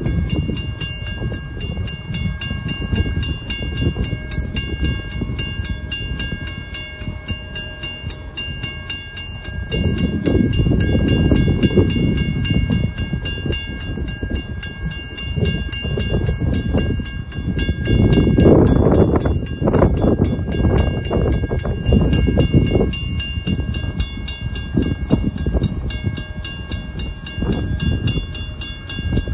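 WCH first-generation mechanical crossing bell ringing with rapid, even strokes while the crossing is activated and the gates are down. Underneath is a gusty low rumble that swells about ten seconds in and again about halfway through.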